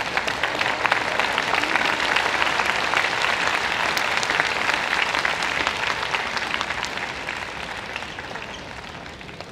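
Crowd applauding, a dense patter of clapping that slowly dies away over the last few seconds.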